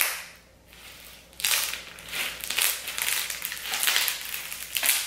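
Clear slime packed with sugar beads being squeezed and kneaded in the hands, giving a crunchy crackling that starts about a second and a half in.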